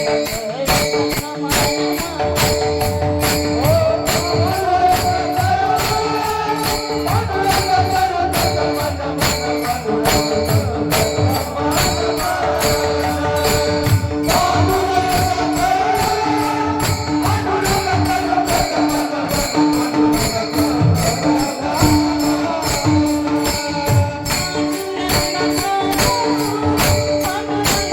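Instrumental interlude of devotional kirtan music: a harmonium melody over held notes, with small hand cymbals jingling a steady beat and a drum underneath.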